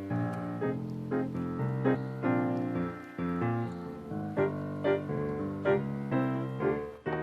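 Background music: a piano plays a quick series of notes over held chords, with a short break near the end.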